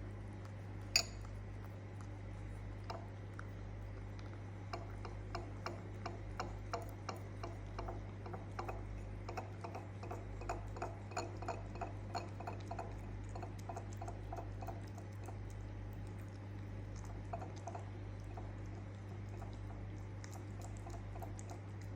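A cat eating from a dish: a run of short, regular clicks about three a second, with a single louder click about a second in.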